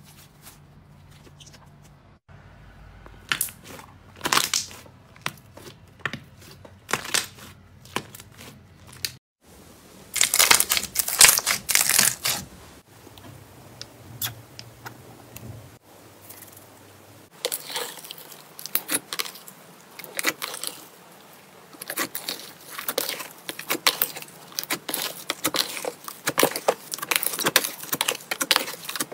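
Slime being pressed and squeezed by hand, making sticky crackles and small wet pops. They come scattered at first, a loud dense patch comes about ten seconds in, and from just past halfway the crackling turns rapid and constant as the clear slime is kneaded.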